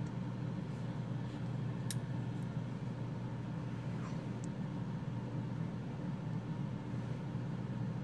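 Stedemon Vouking Samgun titanium framelock flipper knife being closed and handled. There is one sharp metallic click about two seconds in as the blade folds shut, and a few fainter ticks around four seconds in, over a steady low background hum.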